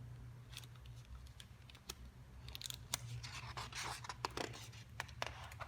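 Faint rustling and small clicks of a picture book's paper pages being handled and turned, with a patch of rustling in the middle, over a steady low hum.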